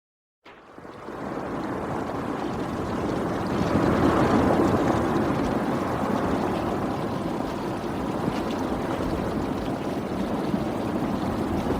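Avalanche sound effect: a deep, continuous rushing rumble of snow or rock sliding, starting about half a second in and building over the first few seconds, then staying loud.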